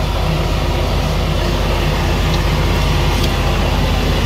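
John Deere 4640 tractor's diesel engine running steadily, with the air seeder's fan blowing, a continuous drone.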